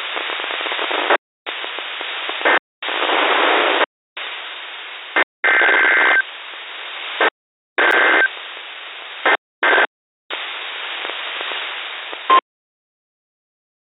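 Hissing radio static that cuts in and out in bursts of a second or so with short dead gaps, a faint steady tone showing in some bursts, then cutting off completely near the end.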